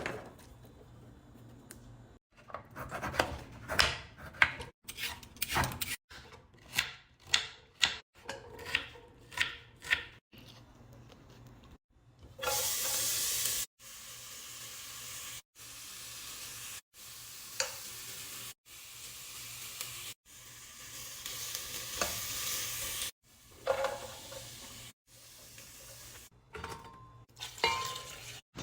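Kitchen cooking sounds in short edited clips: first a run of quick sharp utensil strokes, then, from about halfway, food sizzling in a hot pan or pot while being stirred.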